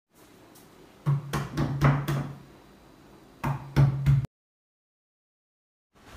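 Knocking on a wooden panel door: a quick run of about five knocks, then after a short pause about four more.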